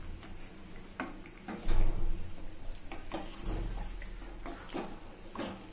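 Metal ladle stirring cauliflower gravy in a clay pot, clicking and knocking against the pot at irregular moments, with a low thud about two seconds in.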